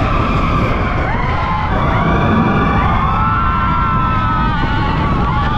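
Expedition Everest roller coaster ride heard from on board: a heavy, steady rumble of the train and rushing air, with several long, wavering high-pitched squeals overlapping and gliding in pitch.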